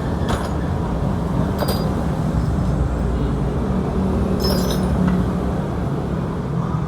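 A few sharp metal clinks, about three, over a steady low rumble.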